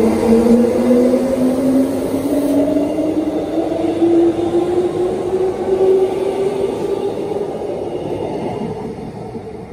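Transperth electric train pulling out of the station. Its motors whine in a few tones that rise steadily in pitch over a rumble of wheels, and the sound fades as the train draws away.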